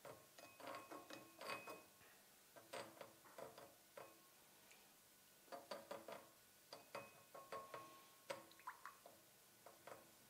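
Metal spoon stirring miso broth in a small pan, faintly clinking and scraping against the pan in irregular light taps, a few of them ringing briefly.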